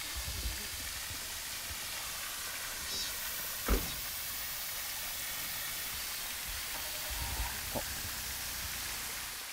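Pond fountain jet spraying and its water falling back into the pond, a steady even hiss of splashing water. A single sharp thump sounds a little under four seconds in.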